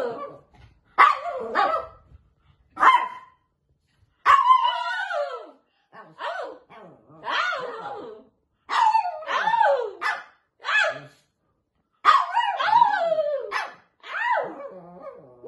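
Long-haired chihuahua barking and yapping in play: a string of about a dozen calls with short gaps, some drawn out with pitch sliding up and down.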